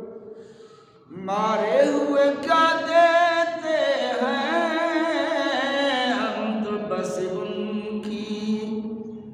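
A man's voice chanting one long melodic phrase in the style of Islamic devotional recitation, with wavering, ornamented pitch and no instruments. It begins about a second in, after a short pause.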